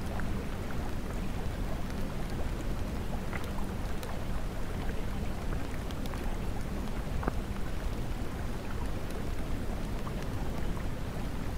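Steady rain sound: an even hiss of falling rain with scattered drop ticks and a low rumble underneath, used as the cover track that hides a subliminal's affirmations.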